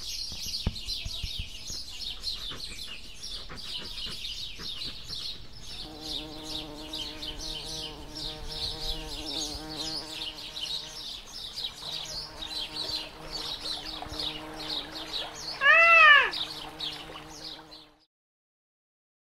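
A dense chorus of chirping birds, joined about six seconds in by a steady buzzing hum. Near the end comes one loud rising-and-falling call, then the sound fades to silence shortly before the end.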